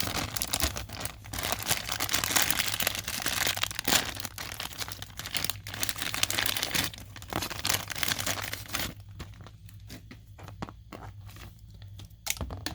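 Plastic packaging crinkling and rustling as it is handled and torn open, for about nine seconds, then a few light clicks and taps of small plastic parts, with a single louder knock near the end.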